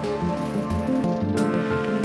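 Instrumental background music with shifting pitched notes and a light high percussive hit about one and a half seconds in.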